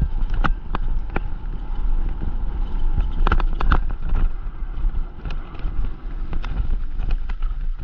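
Mountain bike descending a rough, gravelly trail: tyres rolling and crunching over loose stones, with frequent sharp clicks and knocks from the bike rattling over bumps, over a steady low rumble.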